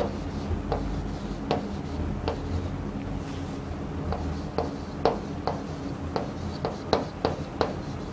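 Chalk writing on a chalkboard: irregular short taps and scratches as letters are written, over a low steady hum.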